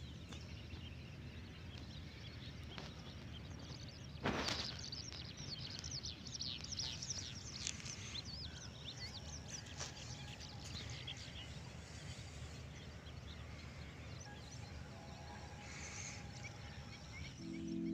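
Faint outdoor ambience of small birds chirping, busiest for several seconds after a single knock about four seconds in, over a low steady rumble.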